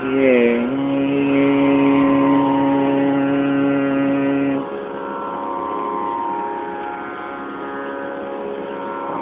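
A male Carnatic vocalist holds a long, steady sung vowel 'ē' in raga Sama over a steady drone. His voice stops a little past the middle, and the drone and accompaniment carry on more quietly.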